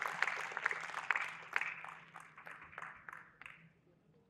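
Audience applauding. The claps thin out and die away about three and a half seconds in.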